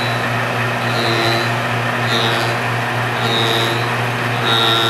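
Belt-driven fly cutter on a rose engine ornamental lathe running with a steady motor hum while cutting flutes into ash wood. A higher whine swells about once a second, four times, as the cutter bites into the wood.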